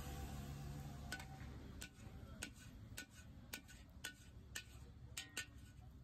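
Metal spatula knocking and scraping against a large iron wok as fried noodles are shovelled out onto a plate: sharp clinks about twice a second, each with a brief metallic ring.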